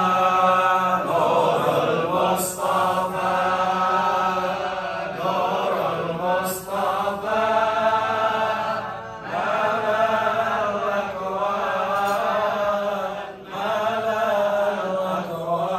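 A man chanting an Arabic devotional song (sholawat) with no instruments, in long, wavering held notes broken by short pauses for breath.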